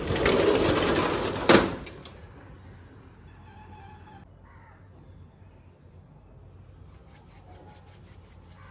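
Sliding glass window in a metal frame pushed open along its track: a loud scraping rush that ends in a knock about a second and a half in, then faint outdoor ambience.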